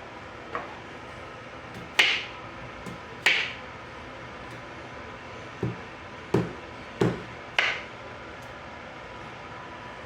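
Kitchen utensils knocking and clinking against hard cookware or a board: about seven sharp knocks at uneven intervals, some bright with a brief ring, some duller.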